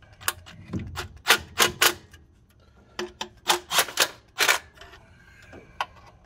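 Milwaukee cordless power tool driving the valve cover bolts on a 454 big-block Chevy, in a series of short bursts: one cluster in the first two seconds, another from about three to four and a half seconds in, and a last short burst near the end.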